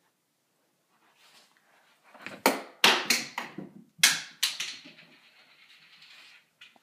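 A quick run of sharp clattering knocks on a hard surface, about seven or eight in two and a half seconds, followed by a soft hiss that cuts off near the end.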